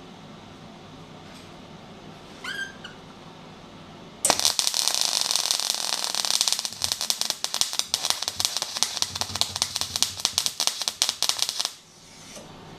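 Magmate 150 wire-feed welder running 0.9 mm flux-cored wire at 150 amps and only 15 volts: the arc starts about four seconds in and crackles and pops unevenly for about seven seconds, then stops abruptly. The voltage is too low for the wire speed, so the wire is not burning off properly: terrible at low voltage.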